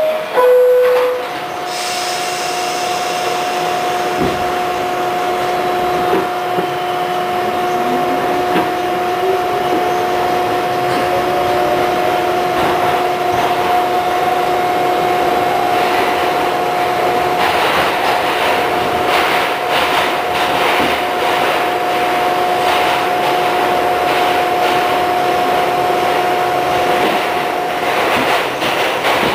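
A Westinghouse R68 subway train's two-tone door chime, high then low, then the train pulls out of the station. Under a steady electrical hum, a motor whine rises in pitch as the train accelerates. From about halfway through, wheels clatter over the rail joints as it runs through the tunnel.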